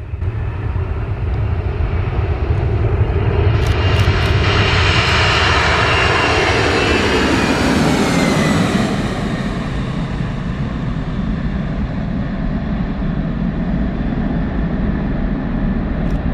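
Boeing 767-300ER's twin turbofan engines at take-off thrust: the roar builds as the airliner accelerates and passes, with a high whine falling in pitch around the middle of the pass, then settles into a steady lower rumble as it climbs away.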